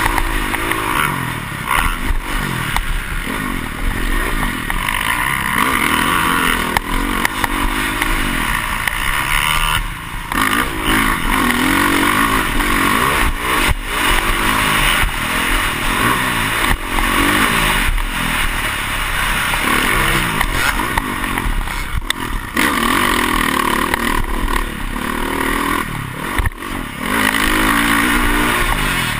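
Dirt bike engine heard from a camera mounted on the bike, revving up and falling back again and again as the rider works the throttle over the jumps, with brief drops about ten seconds in and again about twenty-two seconds in. Sharp knocks from the bumps punctuate the engine note.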